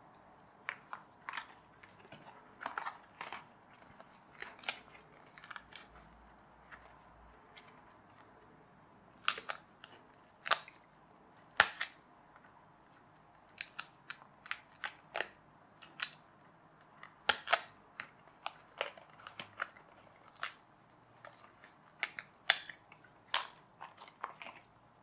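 Stiff printed card pieces of a pull-back toy plane kit being pressed out of a die-cut sheet and fitted together by hand: irregular small snaps, clicks and crinkles, some much sharper than others, with a lull about a third of the way through.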